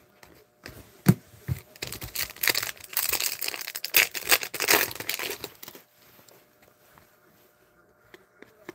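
Foil wrapper of an Upper Deck hockey card pack torn open and crinkled by hand: a few sharp crackles, then about four seconds of continuous crinkling that stops about six seconds in.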